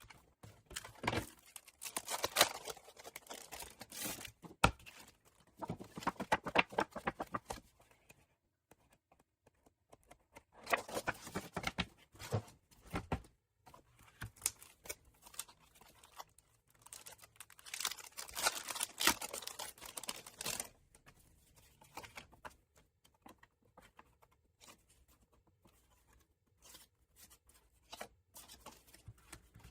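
Paper packaging being unwrapped by hand: crinkling and tearing in three spells of a few seconds each, then lighter rustles and small taps as items are handled.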